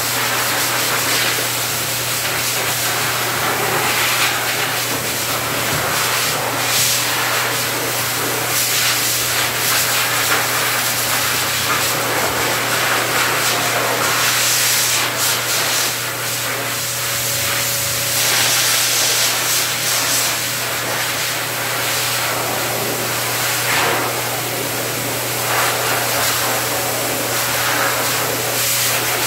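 Dog grooming blower dryer running steadily: a continuous rush of air from its hose nozzle over a low motor hum, the hiss brightening and dulling every few seconds as the nozzle is moved through the dog's coat.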